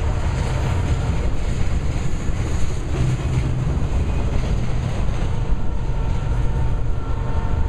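Autorack freight cars rolling past, a steady rumble of steel wheels on rail.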